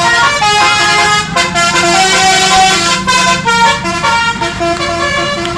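Bus 'telolet' horn: a set of musical horns playing a quick tune of stepping notes.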